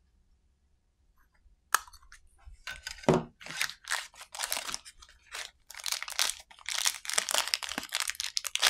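A small clear plastic bag crinkling and crackling in a dense run as hands unwrap a small part from it. One sharp click comes a couple of seconds before.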